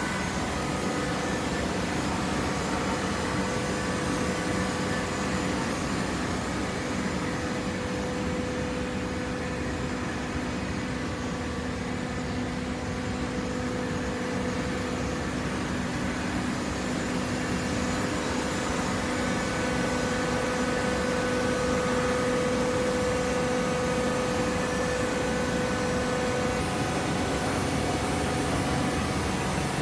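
Hydraulic cardboard baler running: a steady machine hum with a held whine that grows a little stronger in the second half.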